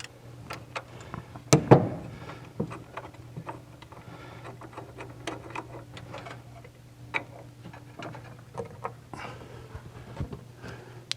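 Hand tools working on intake manifold nuts: scattered metallic clicks and ticks of a socket ratchet and wrench, with one louder clank about two seconds in, over a steady low hum.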